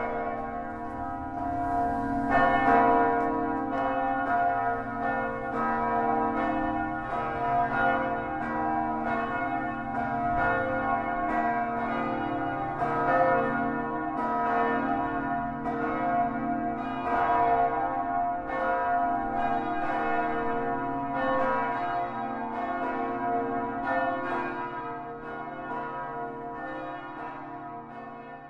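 Several church tower bells ringing together in an overlapping, irregular peal, each one struck again and again so that the tones keep layering; the bells are rung for a funeral.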